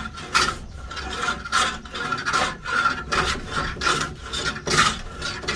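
A hand tool cutting or scraping wood in repeated rasping strokes, about two a second.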